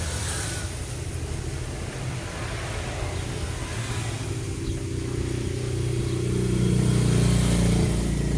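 A vehicle engine running, growing louder with a slight rise in pitch about six seconds in.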